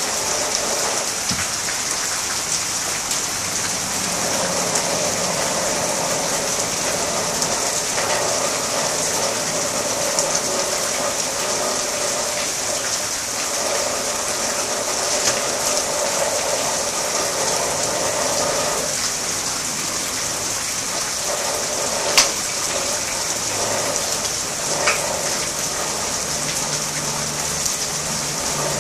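Rain falling steadily on garden plants and ground, an even hiss. One sharp tap about 22 seconds in.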